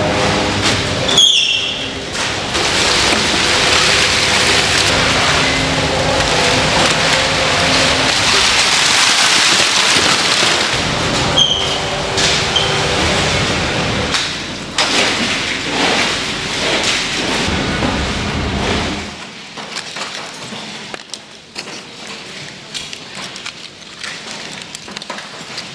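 Steady rushing hiss of spraying water with knocks and clatter mixed in. It drops away about nineteen seconds in, leaving scattered clicks and knocks.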